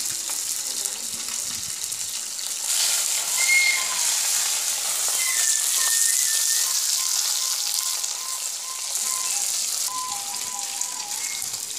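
Pieces of fish sizzling in hot oil in a kadhai, getting louder about three seconds in as they are stirred. A soft background tune plays underneath.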